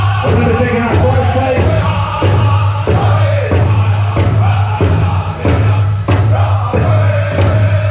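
Powwow drum group singing a chicken dance song in unison, voices over the steady beat of a large powwow drum.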